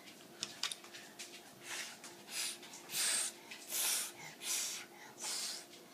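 A toddler blowing at a bubble wand: about six short, breathy puffs, roughly one every 0.7 seconds, strongest in the middle.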